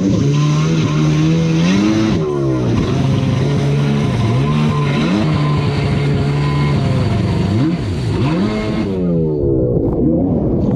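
Yamaha SuperJet stand-up jet ski's engine running hard at high throttle. Its pitch drops and climbs back twice, about two and eight seconds in, as the throttle is eased and reopened over wake. Near the end the ski hits a wake with a splash of spray.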